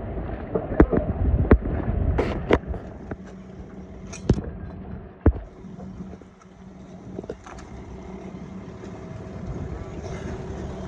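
Sharp knocks and clatter, about half a dozen in the first half, over a rumbling background, giving way to a steady engine hum.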